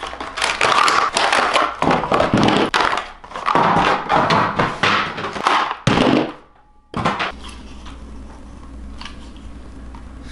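Plastic blister packaging and cardboard crackling and tearing as a blowtorch head is pulled out of its pack. About seven seconds in this gives way to a quieter steady hiss with a couple of faint ticks.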